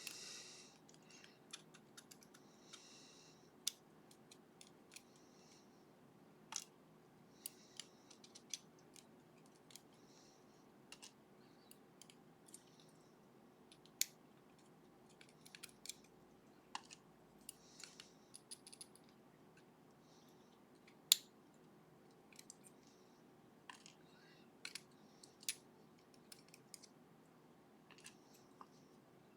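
Faint, scattered small metal clicks and ticks from lock driver pins and springs being worked out of a lock body with small tools. A few clicks stand out louder: one about three and a half seconds in, one near the middle and one about two thirds of the way through.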